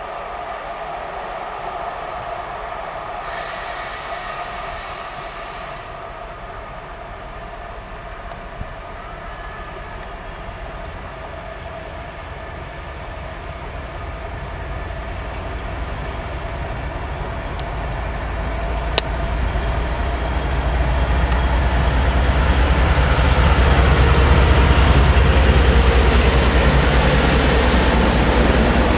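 TEP70BS diesel passenger locomotive approaching with its train, its V16 diesel engine droning with a steady whine and getting louder as it nears and passes. Over the last third a deep rumble of the passenger coaches rolling past on the rails takes over and is the loudest part.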